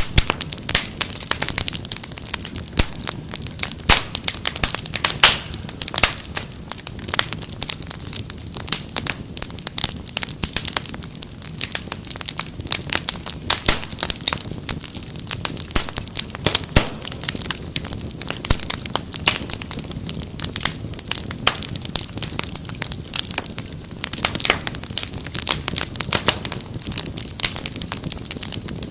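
Wood fire crackling, with dense irregular pops and snaps over a steady low rush of flame.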